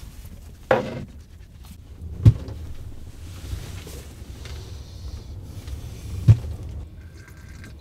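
Toothbrushing inside a truck camper, a faint scrubbing over the steady low rumble of storm wind against the camper. Two sharp thumps, the loudest sounds, come about two seconds in and again near the end.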